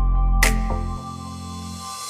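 Electronic background music coming to its end: one last beat about half a second in, then the bass drops out about a second in and a held chord fades.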